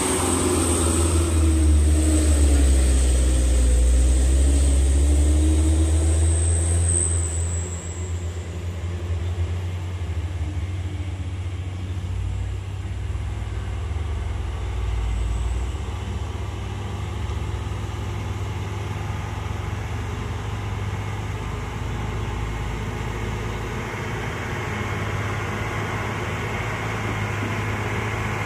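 Diesel dump truck engine working hard on a steep climb close by, its pitch dipping and recovering, loud for the first eight seconds or so, then fading as it pulls away. After that a steady low engine rumble from another truck coming up the road.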